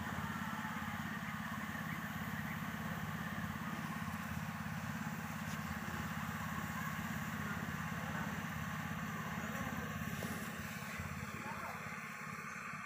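An engine running steadily with a low, even hum that eases slightly near the end.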